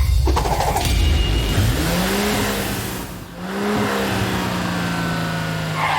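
Cartoon vehicle engine sound effect, revving up twice, each time rising to a steady drone, with the second drone easing slightly in pitch at the end.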